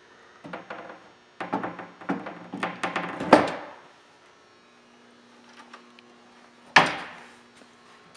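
Wooden cabinet panels knocking and clattering as they are fitted back into place: a run of knocks in the first few seconds ending in a loud one, then a single sharp knock near the end.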